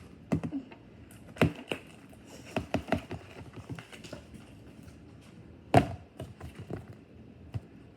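Plastic fork stirring thick glue-and-activator slime in a bowl, knocking and scraping against the bowl in irregular clicks, with one louder knock a little before six seconds in.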